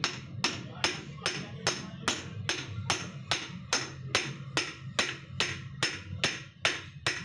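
Steady, evenly spaced hammer taps, about two and a half strikes a second, during work on a disc brake caliper.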